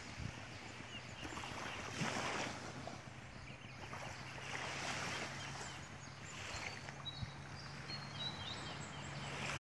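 Small waves washing onto a sandy beach in slow swells, with birds chirping and a low steady hum underneath. The sound cuts off just before the end.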